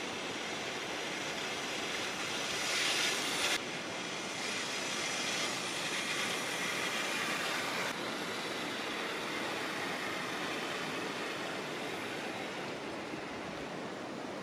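Steady rushing noise of a river flowing. It swells for a second or so about two seconds in, cuts off abruptly, and drops a little again about eight seconds in.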